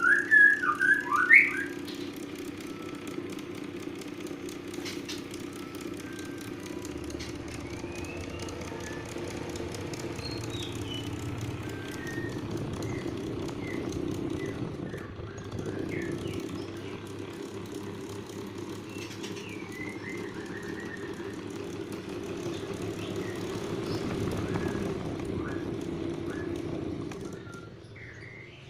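Faulty electric fan, running without its guard, with a steady hum, loud high squeaks about the first second and a half, and faint scattered squeaks later. The hum drops away near the end.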